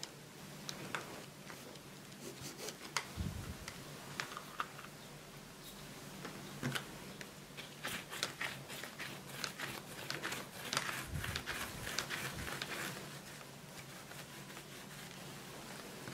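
A plastic dough scraper cutting dough on a silicone baking mat, then hands rolling dough on the mat: scattered light taps and clicks, busiest in the middle, with a few soft thumps.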